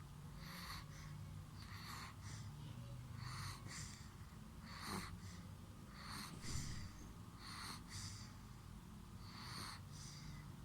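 Newborn baby snoring in its sleep: a noisy breath about every second and a half, over a faint low hum.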